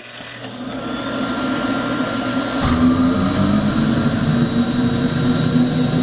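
Shenandoah waste oil burner starting up: the blower motor spins up with a hiss and a high whine that rises and then holds steady. About two and a half seconds in, a steady low rumble joins as the oil flame lights.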